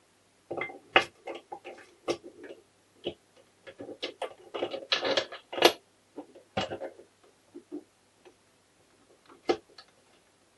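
Honda MT5 gearbox gears and shafts being handled and fitted into the crankcase half: irregular metal clicks, clinks and knocks, with a busier run of scraping and rattling about five seconds in.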